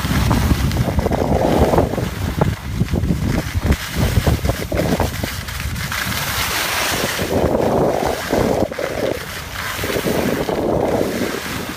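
Wind buffeting the microphone as the skier films on the move, a heavy low rumble, over the hiss and scrape of skis sliding on snow that swells in patches.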